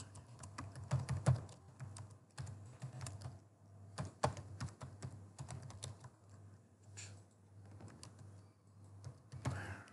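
Typing on a computer keyboard: a run of irregular, quick keystroke clicks, with a steady low hum underneath.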